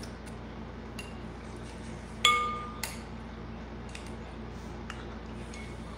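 A spoon clinking against a glass soup bowl: one sharp, ringing clink about two seconds in, a lighter clink just after, and a few soft taps as the spoon scoops soup.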